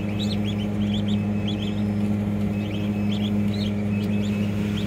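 Newly hatched ducklings peeping repeatedly in short, high chirps, over a steady low machine hum.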